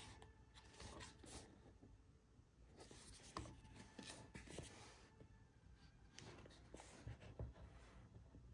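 Box packaging being handled and opened: faint rubbing and rustling with scattered light clicks.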